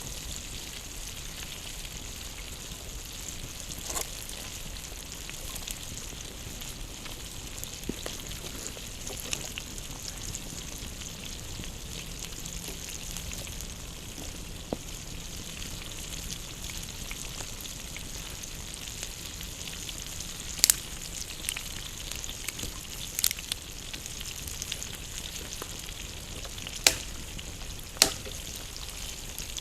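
Food frying over a campfire: a steady sizzling hiss, broken by sharp pops, a few of them loud in the second half.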